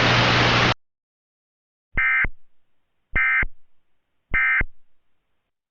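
Hiss with a low hum cuts off under a second in. Then come three short bursts of Emergency Alert System digital data tones, about a second apart: the end-of-message code that closes the alert.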